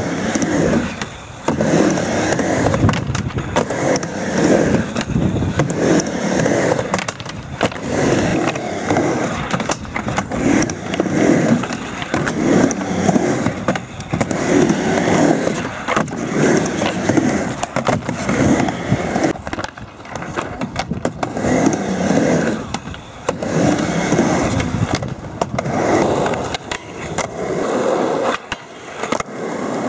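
Skateboard wheels rolling back and forth across the ramp and tarmac, the noise swelling and fading with each run, broken by sharp clacks of the board's tail and landings.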